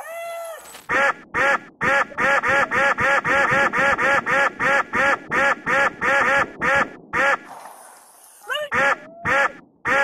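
A rapid string of duck-quack sound effects, about four a second, each standing in for one shot of a police gunfire volley. The string breaks off about seven and a half seconds in, and a few more quacks follow near the end.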